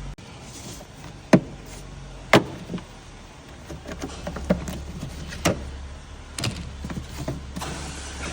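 A few sharp plastic clicks and knocks as the cabin filter housing and its cover are handled, two loud ones early and several lighter ones later, over a low steady hum that comes in about three seconds in.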